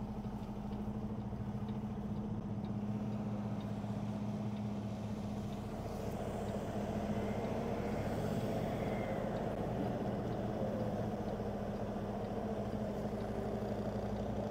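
Kenworth T680 semi truck's diesel engine running steadily at low speed as the tractor reverses a loaded trailer, its hum growing slightly louder after a couple of seconds.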